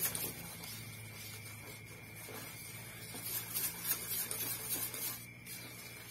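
Thick caramel cake batter being stirred by hand in a stainless steel pot: soft, irregular scraping and swishing as it is mixed until smooth. A faint steady hum runs underneath.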